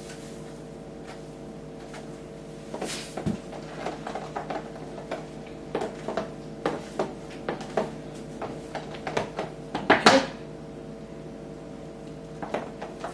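Spoon stirring salsa in a plastic tub, knocking and scraping against its sides in quick irregular clicks, loudest around ten seconds in.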